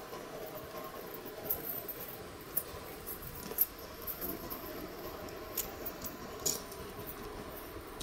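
Shay geared steam locomotive No. 5 working away into the woods, a faint steady running sound with a few sharp, irregular clicks and clanks, the loudest about three and a half seconds in.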